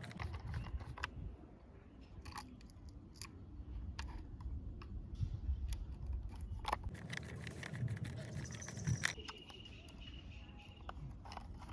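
Screws being tightened into a plastic toy auto-rickshaw body with a small screwdriver: scattered clicks and creaks of plastic parts being handled.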